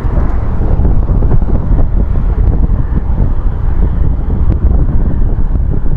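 Strong wind buffeting the microphone: a loud, constant, fluttering low rumble.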